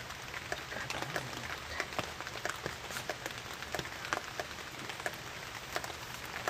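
Irregular scratchy clicks and crackle of a snake's body being scraped along an upright bonti blade by hand.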